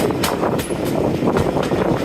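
A train hauled by a Class 45 diesel locomotive running along the line. Its steady running noise carries irregular clicks and rattles.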